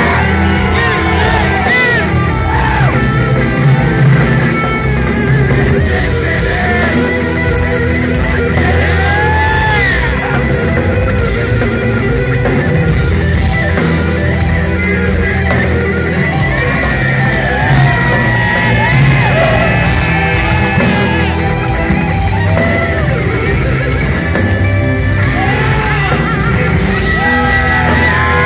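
Distorted electric guitar solo at a heavy metal show, full of string bends and wide vibrato, over the band's bass and drums, with fans yelling close by.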